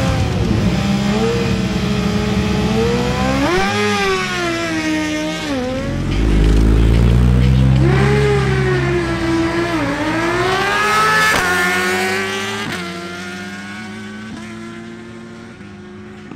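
Ducati Panigale V4 and Suzuki GSX-R1000 sport-bike engines revving up and down at the start line, then accelerating hard with quick upshifts, where the pitch climbs and drops sharply twice. The sound fades over the last few seconds as the bikes pull away.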